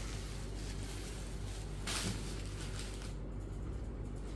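Cotton saree being handled and folded on a table, with one brief rustle of cloth about two seconds in, over a steady low hum.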